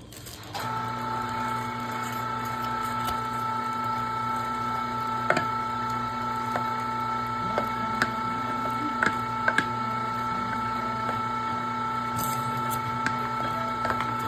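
Electric meat grinder switching on about half a second in and running with a steady motor hum while ground venison feeds into a freezer bag, with a few faint clicks.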